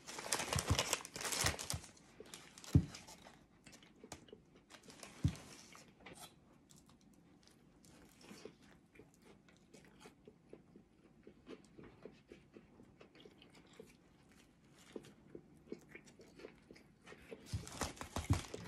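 Paper sandwich wrapper crinkling as it is opened, with a few thumps in the first five seconds, then close biting and chewing of a crispy chicken sandwich with small mouth clicks; the wrapper crinkles again near the end.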